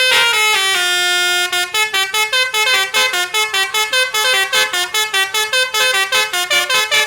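Bus-mounted Basuri V4 musical 'telolet' horn playing a tune: a few held notes stepping in pitch, then, about a second and a half in, a fast run of short staccato notes, about five a second.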